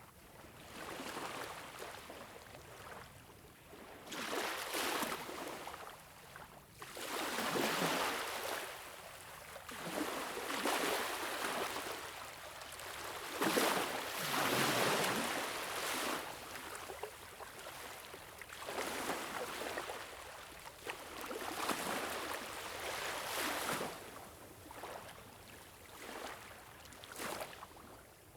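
Waves washing in, each surge of water swelling and fading every two to three seconds.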